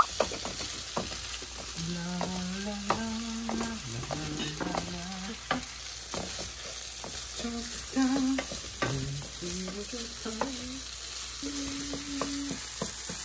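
Dry curry of minced meat and vegetables sizzling in a frying pan while a spatula stirs it, with many sharp clicks of the spatula against the pan. A few low hummed notes come and go.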